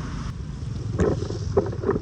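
Floodwater splashing and gurgling in irregular bursts, starting about a second in, over a low rumble of wind on the microphone.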